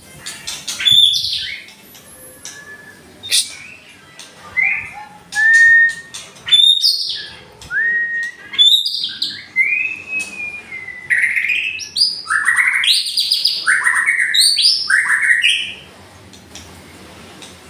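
White-rumped shama singing: loud, varied whistled phrases that slide up and down, with sharp clicking notes between them. The phrases come thick and fast about two-thirds of the way through, then stop shortly before the end.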